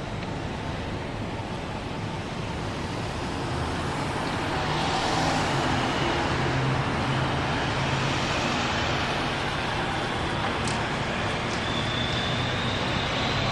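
Steady road traffic noise, growing louder about four seconds in.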